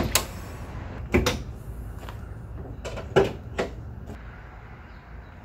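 A handful of sharp clicks and knocks from handling, four or five spread over about four seconds, over a steady low hum.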